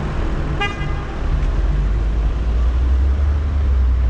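Car driving in city traffic: steady low road and engine rumble that grows louder after about a second. A short single horn toot sounds about half a second in.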